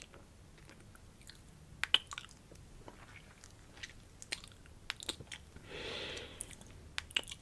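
Close-miked ASMR mouth sounds: scattered wet clicks and smacks from lips and tongue. About six seconds in comes one short, soft breathy sound lasting under a second.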